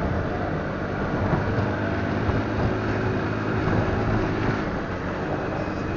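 Motorcycle engine running steadily under way, with a rush of wind and road noise over it; the engine note eases off a little after about four and a half seconds.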